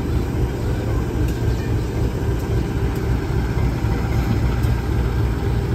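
KAI CC 201 diesel-electric locomotive's engine running with a steady, loud low rumble as the locomotive passes close by.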